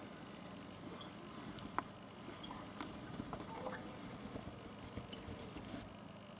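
Faint room hiss and hum with scattered small clicks and taps; the sharpest click comes about two seconds in.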